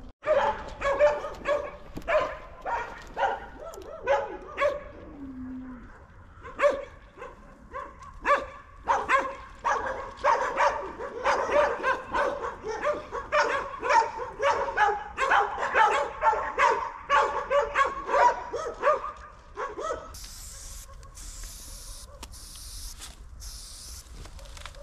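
Several dogs barking over one another, two or three barks a second, for about twenty seconds. Near the end the barking gives way to a spray paint can hissing in short bursts.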